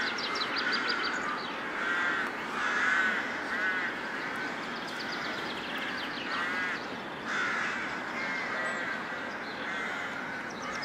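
Crows cawing, a string of short calls about one a second, over steady outdoor background noise.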